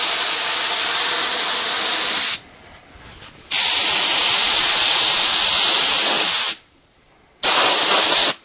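Compressed-air paint spray gun hissing as it lays a coat of mixed blue paint, in three trigger pulls: the first cuts off about two seconds in, the second runs for about three seconds, and the third is short and comes near the end.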